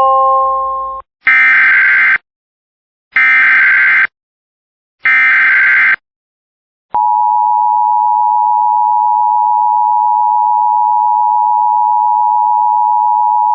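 The tail of a three-note electronic chime fades out about a second in. Then come three one-second bursts of EAS SAME header data, the warbling digital tones that encode the alert. At about seven seconds the steady two-tone Emergency Alert System attention signal starts and holds.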